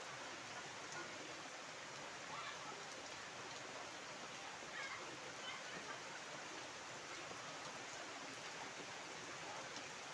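Steady heavy rain pattering on standing floodwater and foliage.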